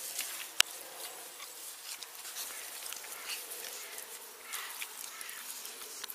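Close crackling and rustling as a donkey's fur rubs against the camera microphone, with many small clicks and one sharp click about half a second in.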